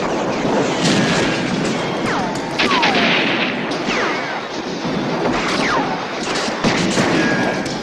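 Massed gunfire from many weapons firing at once without letup, a dense unbroken crackle of shots and impacts, with a few falling whines cutting through it.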